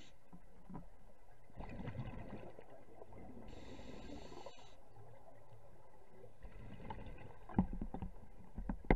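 Scuba diver breathing through a regulator underwater: a steady hiss of inhalation lasting about a second, midway, alternating with low rumbling bursts of exhaled bubbles. A couple of sharp knocks come near the end.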